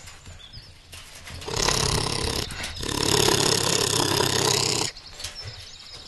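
Honey badger in a wire trap cage growling harshly in two long stretches, starting about a second and a half in, with a brief break, then stopping abruptly near the five-second mark: the defensive growl of a cornered, aggressive badger.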